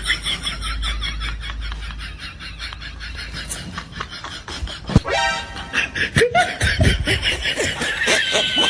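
Laughter in quick repeated pulses over music, with a sudden sharp sound about five seconds in.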